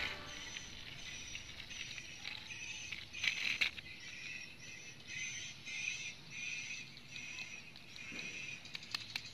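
Faint scrapes and clicks of a small toy dump truck being pushed by hand over concrete and loose clay soil. Behind it, a quiet high chirping repeats at an even pace.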